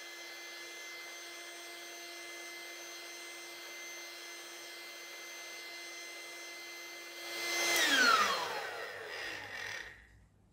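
Small electric inflatable air pump running with a steady whine and hiss; near the end it swells briefly, then is switched off and its whine falls away over about two seconds as the motor spins down.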